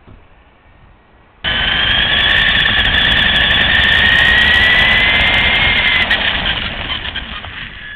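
LaTrax RC car's electric motor and gears whining as it drives. The whine starts suddenly about a second and a half in, rises slightly in pitch, then eases off near the end.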